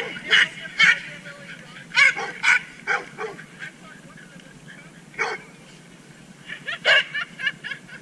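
A dog barking and yipping in short, sharp calls: a quick string of them in the first three seconds, a single one about five seconds in, and a fast run of yips near seven seconds.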